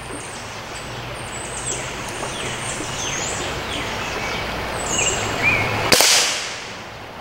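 Umarex Syrix .22 break-barrel pellet rifle firing a single shot about six seconds in: one sharp crack with a short fading tail. Birds chirp throughout over the steady rush of a flowing creek.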